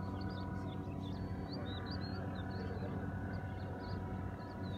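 An engine running with a steady low hum, with small birds chirping in quick, high notes over it.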